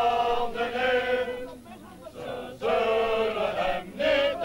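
A group of people singing together in unison, in long held phrases with a short break between them.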